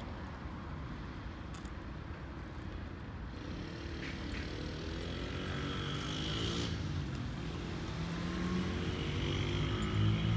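A motor vehicle engine running in the background: a steady hum that slowly rises in pitch and grows louder through the second half, as a vehicle approaches.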